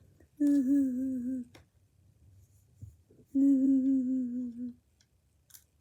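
A person humming two held notes, each a second or so long and sinking slightly in pitch, with a pause between them.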